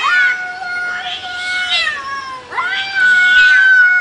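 Two cats in an aggressive standoff, yowling: long drawn-out calls that hold and then bend in pitch. One call runs about two and a half seconds, and a second starts just after.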